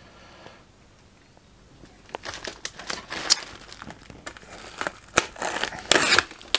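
Clear plastic wrapping film crinkling and crackling as hands pull at it, starting about two seconds in with sharp crackles that grow loudest near the end.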